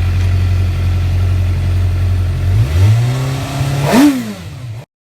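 2008 Suzuki GSX-R600 K8's inline-four through a Yoshimura exhaust, idling steadily and then blipped twice, the second rev a quick sharp rise and fall about four seconds in. The sound cuts off abruptly just before the end.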